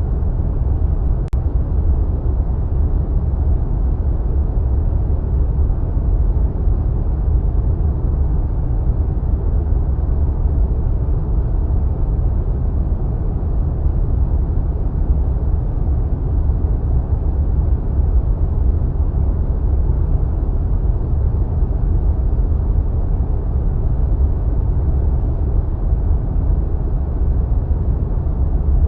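Steady, deep rushing wind, a wind sound effect heavy in low rumble with little hiss on top, holding an even level without gusts.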